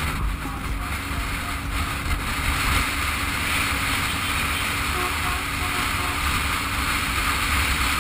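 Wind rushing over the microphone of a camera on a Yamaha FZ25 motorcycle, with its single-cylinder engine and road noise running steadily underneath at highway speed.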